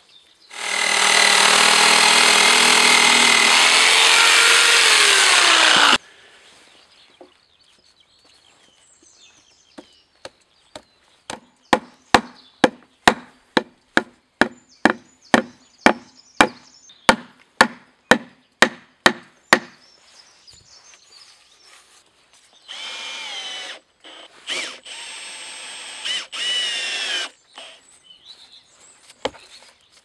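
Two-stroke chainsaw cutting into a spruce log at full throttle, its pitch sagging under load before it cuts off suddenly about six seconds in. Then about twenty claw-hammer blows on the log at roughly two a second, and near the end several short whirring bursts.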